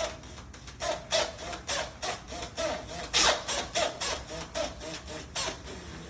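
Hand file or rasp worked back and forth on a wooden door edge, about three quick strokes a second, stopping near the end.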